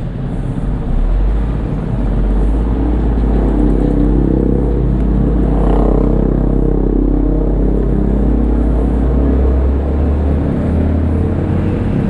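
A nearby motor vehicle engine running steadily with a deep drone, its pitch stepping up a little near the end.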